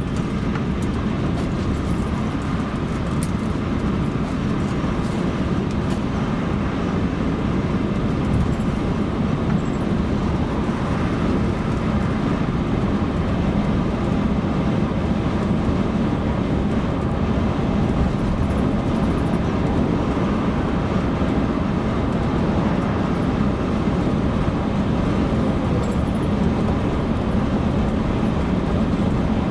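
Steady road noise of a car driving along a motorway: an even mix of tyre and engine noise with no changes.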